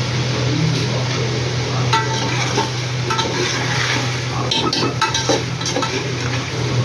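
Food frying in a cooking pot while a metal spoon stirs it, with a few clinks and scrapes of the spoon against the pot about two seconds in and again a little past the middle.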